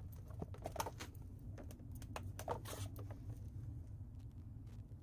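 Faint scattered light clicks and rustles over a low steady hum.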